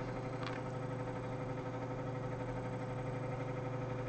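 Steady low background hum with a faint constant tone above it, and one faint click about half a second in.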